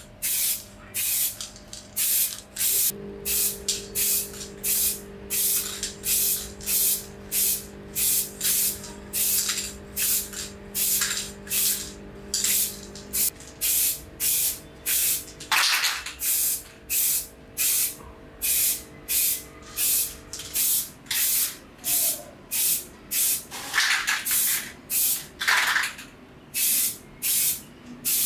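Aerosol spray paint can spraying in short repeated hissing bursts, roughly two a second.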